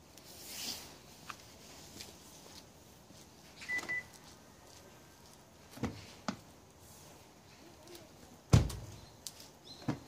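A single short beep from the X-Link alarm's piezo buzzer, sounding as the doors auto-unlock for the approaching smart key. It is followed by a couple of sharp clicks and, near the end, a loud thump as the driver's door handle is worked.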